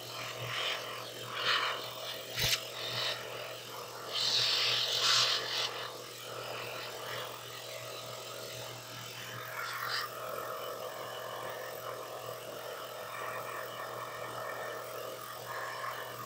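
Handheld vacuum cleaner running steadily as it sucks dust out of an open computer power supply, with a rush of airflow hiss that swells at times, most strongly about four to five seconds in, as the nozzle moves over the parts.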